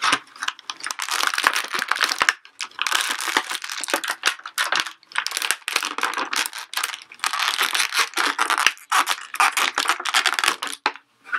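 Thin clear plastic bag crinkling and crackling in the hands as an action figure is worked out of it, in several bouts of a couple of seconds with brief breaks.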